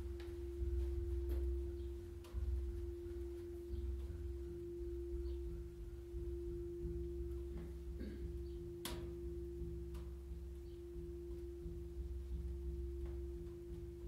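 Steady meditation drone: a single pure tone held without change over a low rumble, with a few faint clicks, the clearest about nine seconds in.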